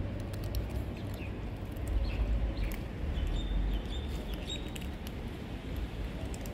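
Stray cats crunching dry kibble off a pavement: many small, irregular clicks over a steady low outdoor rumble, with a few faint high chirps around the middle.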